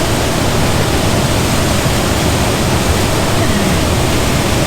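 Loud, steady rush of water from a waterfall on a mountain creek.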